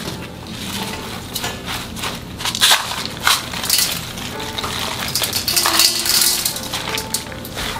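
Coarse sun-dried sea salt sprinkled by hand over young radish greens in a stainless steel bowl: grains crackling and pattering on the leaves, with a few sharper ticks about three seconds in. Quiet background music plays underneath.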